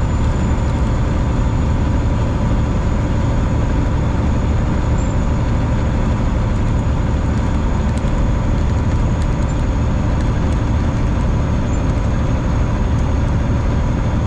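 1999 semi-truck's diesel engine and road noise inside the cab while driving at a steady speed: an even, unbroken low drone.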